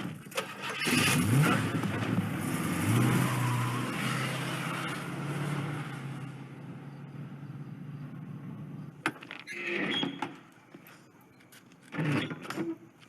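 Motor vehicle engine starting and revving up, then running steadily and fading away. Two short, louder sounds come near the end.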